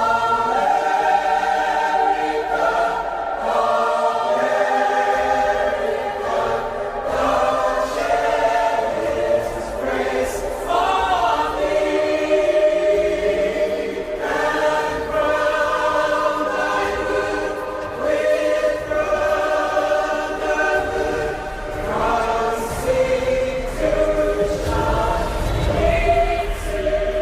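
A choir singing slow, sustained chords, the voices moving between long held notes. A deep low rumble swells under the singing near the end.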